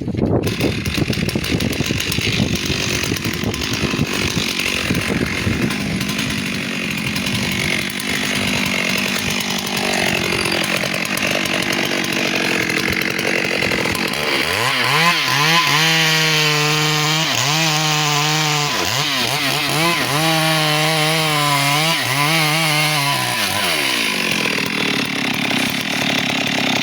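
Two-stroke chainsaw running and cutting into a teak tree. About halfway through, its engine note steadies, then dips and recovers over and over before fading out near the end.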